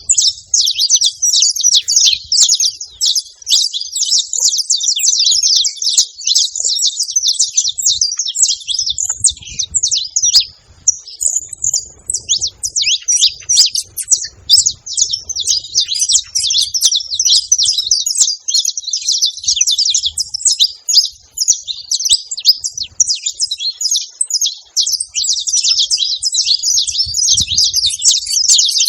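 Saffron finch (canário-da-terra) chirping: rapid, high-pitched chirps packed almost without pause, thinning briefly about a third of the way in.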